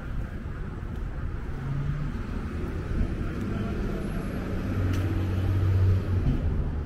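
Street traffic: a vehicle engine's low steady hum under general city noise, growing louder about five seconds in.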